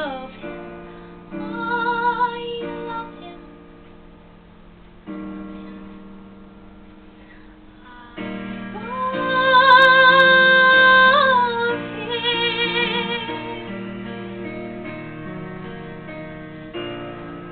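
A young woman singing a musical-theatre song over an instrumental backing track. Her phrases come and go, and the loudest is one long held note with vibrato about halfway through.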